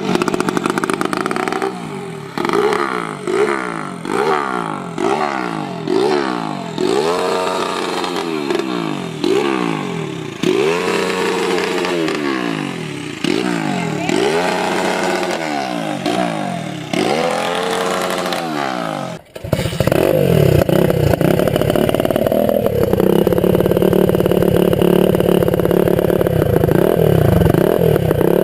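Mini bike engine revved again and again, its pitch rising and falling about once a second. About two-thirds of the way through it cuts suddenly to another engine running steadily at higher revs.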